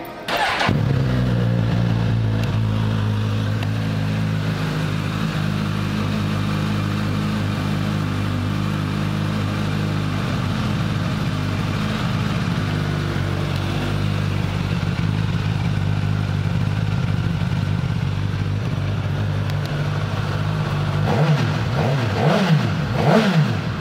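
2016 Suzuki GSX-S1000's inline-four engine on its stock exhaust starting up about half a second in and settling into a steady idle. Near the end it is revved in three quick throttle blips.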